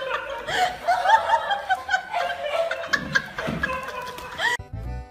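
A person laughing in rapid, repeated high-pitched bursts. Near the end the laughter cuts off suddenly and light music begins.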